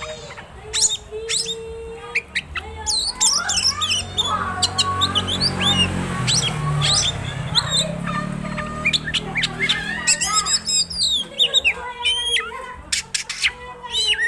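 Oriental magpie-robin in full song, pouring out quick, varied chirps, whistles and squawks, its mimicked repertoire. A low rumble swells and fades in the background midway.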